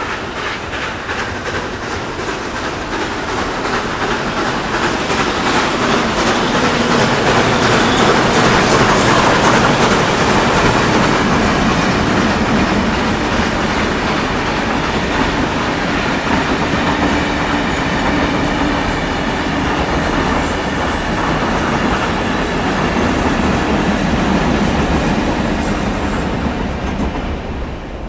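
Steam-hauled heritage passenger train headed by locomotive 3265, a NSW 32 class 4-6-0, going by with its wheels clattering over the rails. The sound builds to its loudest about a third of the way through, holds steady, and falls away at the end.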